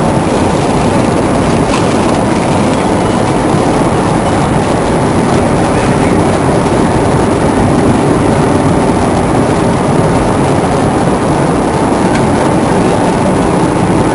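Steady, loud rumbling noise inside an airliner's cabin on the ground just after landing, with a few faint clicks.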